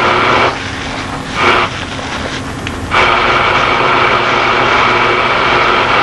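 Steady machine-like drone with a constant whine. It drops for about two and a half seconds about half a second in, with a short louder swell in the middle of that dip, then comes back to full level.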